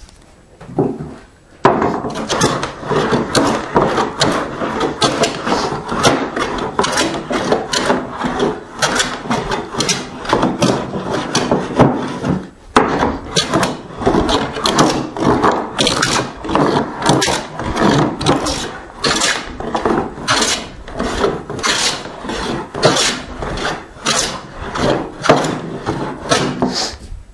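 Try plane taking repeated diagonal strokes across a board: a steady run of rasping cuts, about two a second, with a short pause about halfway. Its lightly cambered iron is set for a shallow cut and is taking out the deep scallops left by a heavily cambered fore plane.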